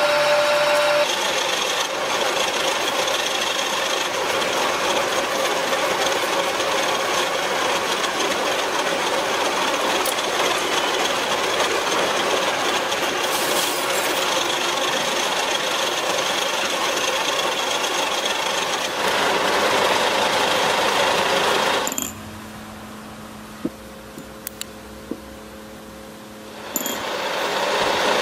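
Metal lathe turning a forged steel ring: steady machine-shop cutting noise with a few held tones. About three-quarters of the way through it drops to a quieter steady hum with a few sharp clicks, then rises again near the end.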